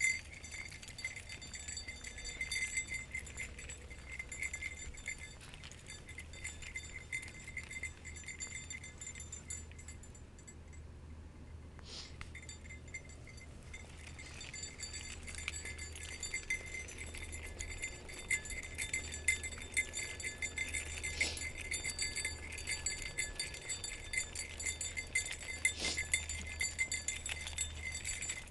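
Night insects chirping steadily in several high pitches, the loudest a pulsing trill, with scattered faint clicks and a few sharper ticks.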